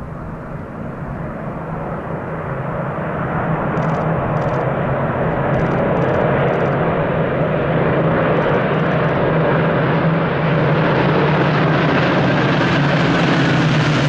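A formation of Spitfires flying overhead, their V12 piston engines merging into one low, steady humming drone that swells over the first few seconds. A faint falling whine comes near the end as the planes pass.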